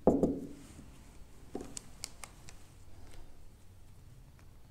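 Marker pen on a whiteboard: a short thump at the start, then a few light, sharp clicks and taps as short strokes are made and the marker is handled.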